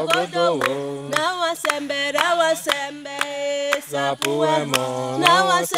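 Voices singing a repeated hymn refrain without instruments, holding long notes and sliding between them.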